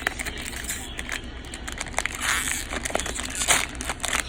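Trading-card packaging being handled and opened by hand: irregular crinkling and rustling with small sharp clicks, the loudest rustles about two and three and a half seconds in.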